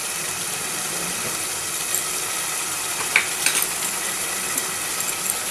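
Mutton and spice masala sizzling steadily in a pan, with a few short clicks of a spoon stirring against the pan.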